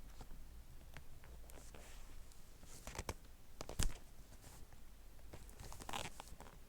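Quiet room with a few scattered light clicks and one sharper knock just before the halfway point. The vacuum's motor is not running.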